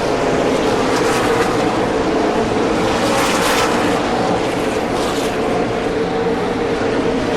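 Stock car racing engines running in a steady, dense drone, with brief brighter swells about three and five seconds in.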